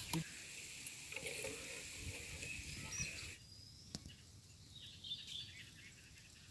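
Faint outdoor ambience with soft handling noises and a single sharp click about four seconds in. A light hiss drops away a little after three seconds.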